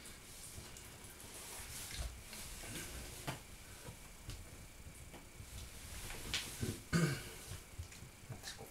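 Soft rustling and a few light knocks as a person shifts and moves close by, with one short, low throat sound about seven seconds in.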